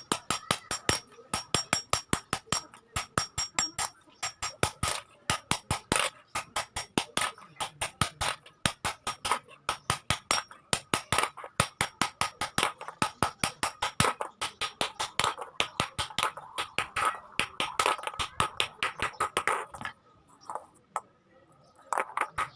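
Blacksmith's hammer striking hot iron on an anvil, a rapid run of ringing blows at about three to four a second. The hammering stops about twenty seconds in, and a few more blows follow near the end.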